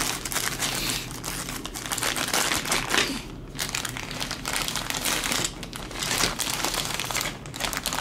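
Clear plastic packaging bag crinkling as it is handled and pulled back off a toy train set, with short pauses about three and a half seconds in, around five and a half seconds, and near the end.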